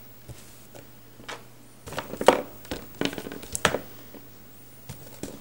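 Small plastic Gormiti toy figures being handled and rummaged in a box and set down on a wooden table: a scatter of light clicks and knocks, the loudest a little over two seconds in.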